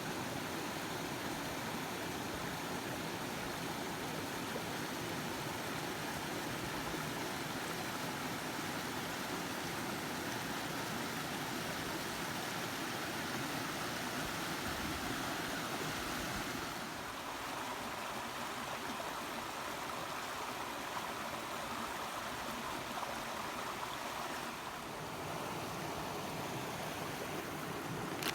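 Steady rushing of a mountain stream, an even, unbroken wash of water noise that shifts in tone abruptly about two-thirds of the way through and again near the end.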